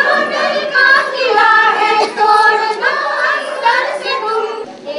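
High voices singing a song together, a women's movement song whose lyrics speak of breaking the fear from within.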